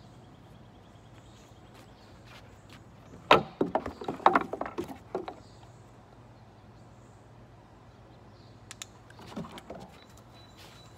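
A dog's paws knocking and clattering on wooden deck boards: a quick burst of sharp knocks about three seconds in, then a few softer ones near the end.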